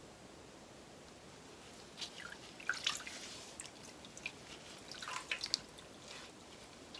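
Cochineal dye liquid dripping and splashing back into a stainless steel pot as a wet skein of wool yarn is lifted out of the dye bath. It comes in two spells of quick drips and splashes, about two seconds in and again about five seconds in.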